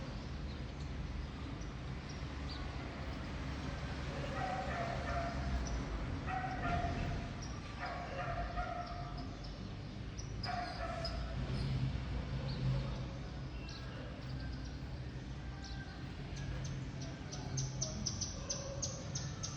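Birds chirping: scattered short high chirps, building near the end into a quick run of rapid high-pitched chirps. Several louder, lower calls of about half a second each stand out in the middle, over a steady low background rumble.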